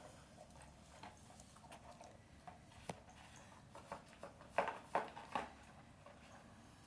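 A dog rummaging in a small cardboard puzzle box stuffed with paper and cardboard scraps: scattered soft rustles and taps, with a short cluster of louder crunches a little over halfway through.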